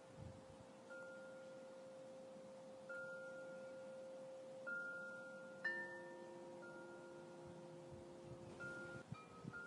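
Faint, soft ambient background music: chime-like held notes over a steady sustained tone, with new notes entering every second or two.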